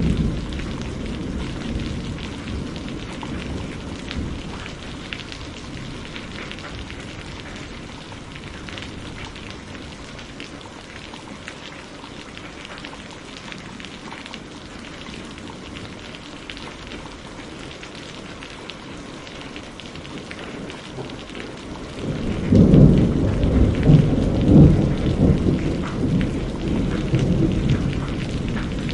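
Steady heavy rain hissing, with rolling thunder. A low rumble fades away over the first few seconds, and a louder roll of thunder builds and rumbles through the last seven seconds or so.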